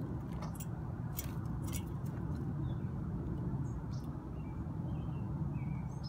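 A steady low rumble in the background, with several sharp clicks from sparrows' beaks pecking at a seed-and-nut cake in a hanging feeder, and a few faint short bird chirps.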